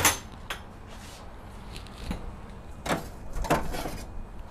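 Door of a Smokin Tex 1140 stainless-steel electric smoker clacking open, followed by a few knocks. Near the end comes a rattling metal clatter as its wire cooking rack is slid out.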